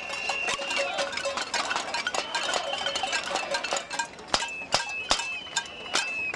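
Metal pots and pans struck over and over by many people in a crowd: a dense, irregular clatter of clangs with ringing metallic tones, and a few louder close-by strikes about four to five seconds in. This is a cassolada, pot-banging as protest noise.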